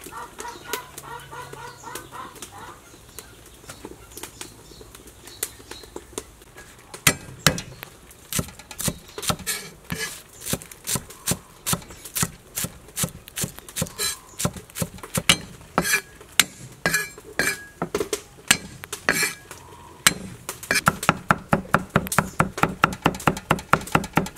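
Cleaver chopping green onions and then mincing garlic on a round wooden chopping block: sharp wooden knocks, scattered at first, becoming a fast, even run of strikes near the end.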